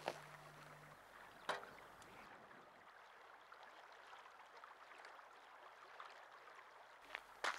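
Near silence: a faint hiss, broken by a brief sharp sound about a second and a half in and another near the end.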